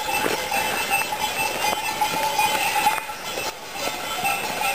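A flock of sheep on the move, the bells hung on the animals ringing and clanking irregularly over the scuffle of many hooves on a gravel track.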